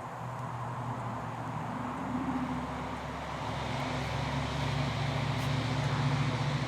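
An engine running with a steady low hum, growing gradually louder.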